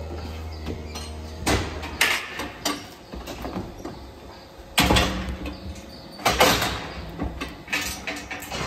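Steel cattle gates and a hoof-trimming crate clanking and rattling, with about four loud metal bangs spread through. A low hum runs underneath for the first two seconds.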